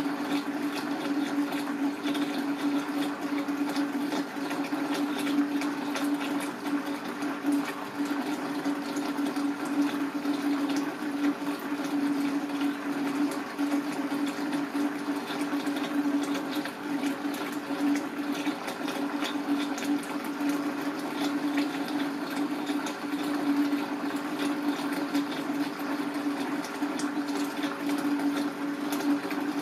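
A steady low hum with an even rushing water-like noise and scattered faint clicks.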